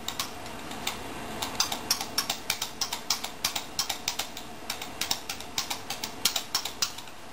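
A quick, uneven series of light clicks and taps, about three to four a second, stopping near the end.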